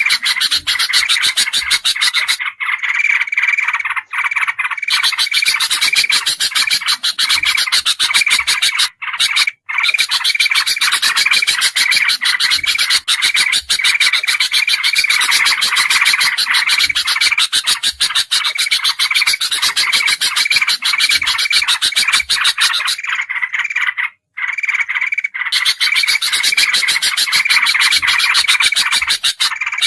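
Dense, noisy chorus of bulbuls chattering rapidly and without pause, a layered bird-lure recording, broken by short gaps about nine and twenty-four seconds in.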